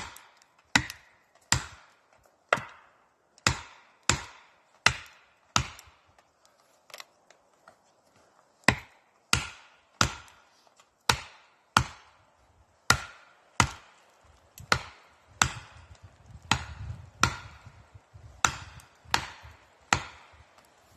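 Sledgehammer striking a felling wedge driven into the back cut of a tree, in steady blows about one a second, with a pause of a few seconds near the middle.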